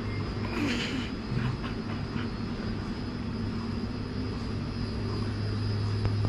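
A steady low mechanical hum with a faint high whine above it, and a brief rustle about a second in.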